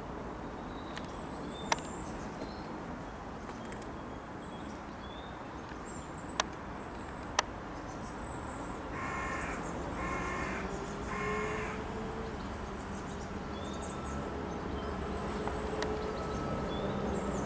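A crow cawing three times in a row, between about nine and twelve seconds in, over a steady low rumble and faint high chirps. Three sharp clicks earlier on are the loudest sounds.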